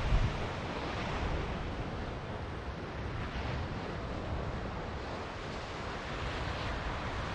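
Ocean surf washing onto the beach, a steady rush, with low wind rumble on the microphone.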